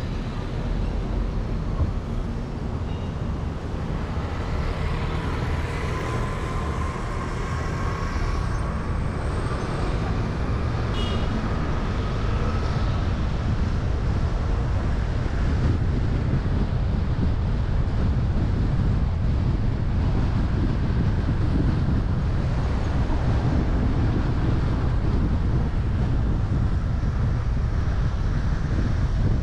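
Road traffic: a steady low rumble of passing vehicles, growing slightly louder, with a faint rising whine from about four to thirteen seconds in.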